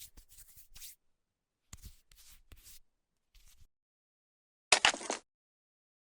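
Toy doctor-set pieces being handled: three short clusters of small clicks and rustles, then a louder rattle lasting about half a second, about five seconds in.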